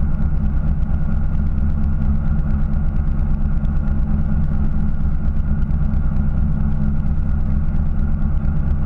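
Fishing boat's engine running steadily at low revs, a constant low hum that does not change.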